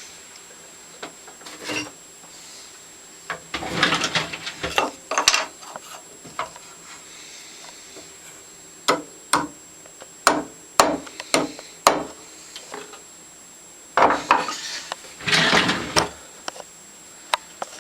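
Metal parts of a Stanley No. 113 circular plane being handled and fitted together on a bench: scattered clicks and light taps, with two longer stretches of rubbing and scraping, one a few seconds in and one near the end.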